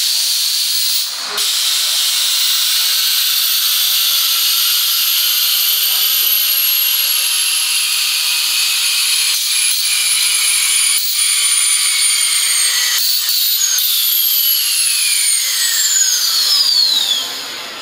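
Compressed air hissing out steadily, with a faint whistle that slowly falls in pitch and a couple of steeper falling tones near the end before the hiss dies away.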